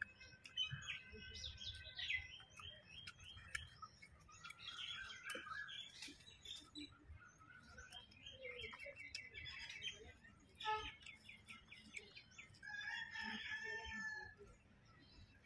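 Several songbirds chirping and calling: quick series of short, repeated notes that come and go.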